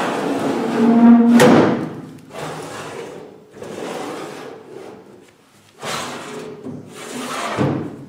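Metal cabinet drawers being pulled open and pushed shut one after another, the slides scraping about five times, with a short squeal and a sharp clack about a second and a half in.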